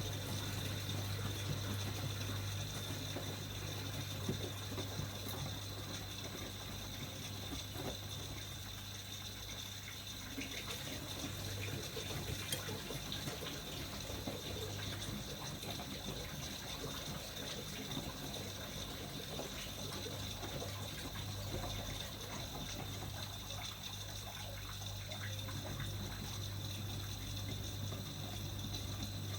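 Miele MedicWash W2585 washing machine running a wash cycle: a steady rush of water with a low hum that drops out briefly twice.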